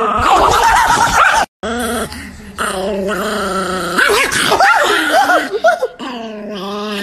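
Chihuahua growling and snarling, breaking into high yips and whines. The sound stops for a moment about a second and a half in, then the snarling goes on.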